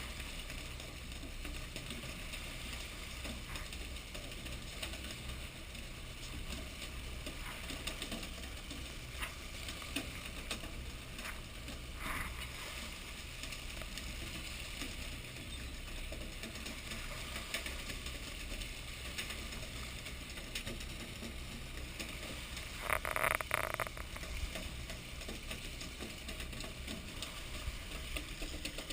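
A fishing boat's engine runs steadily, with scattered clicks and knocks and a brief louder burst of noise near the end.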